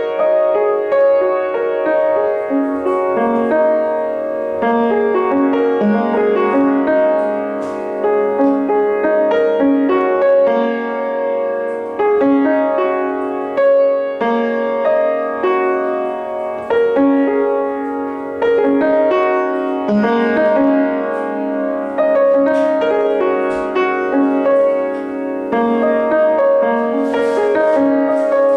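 Solo piano music playing, a steady flow of notes and chords.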